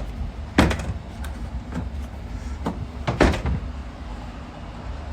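Knocks of a boat's storage compartment lids or hatches being opened and shut by hand, the loudest about half a second in and a doubled one just past three seconds in, with a few lighter bumps between, over a steady low rumble.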